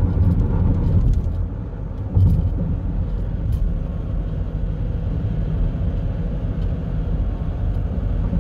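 Steady low rumble of a car driving at highway speed, heard from inside the cabin, with a short louder bump about two seconds in.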